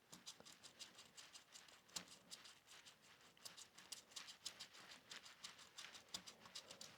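Faint, irregular scratching and small ticks of a folded cloth being rubbed over small electrical switch contacts to clean them.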